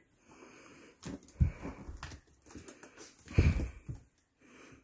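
Small puppy sniffing and snuffling: quiet breathy noise, with two louder low puffs about a second and a half and three and a half seconds in.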